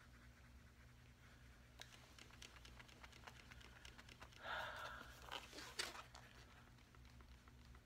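Near silence: room tone with a low steady hum, broken about halfway by a brief faint rustle and a few sharp clicks.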